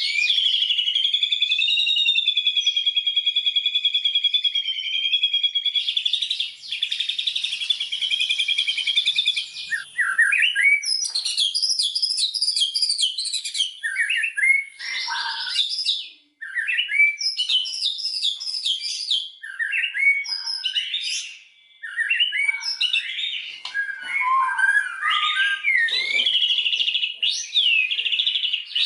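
White-rumped shama singing a long, varied run of loud whistled song. It opens with a sustained wavering trill and a fast buzzy passage, then breaks into quick, changing whistled phrases.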